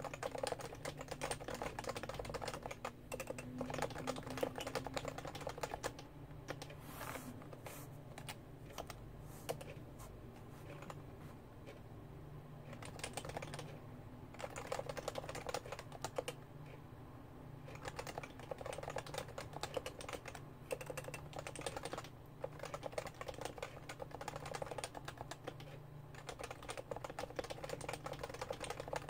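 Realforce R2 keyboard with Topre electro-capacitive switches being typed on continuously at a fast pace, a dense run of soft, rounded keystrokes with a few brief pauses.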